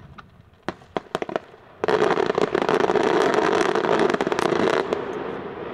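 Fireworks going off: a few sharp separate bangs about a second in, then a dense, continuous crackling barrage of many small reports for about three seconds that stops abruptly and dies away.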